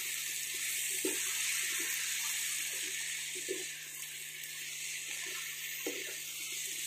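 Spiced vegetables and green peas sizzling in oil in a nonstick pan as they are sautéed, a steady hiss. A wooden spatula stirs them, giving scattered soft knocks and scrapes against the pan.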